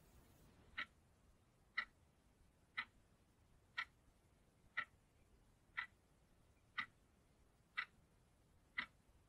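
Analog alarm clock ticking, one short tick each second, nine ticks in all.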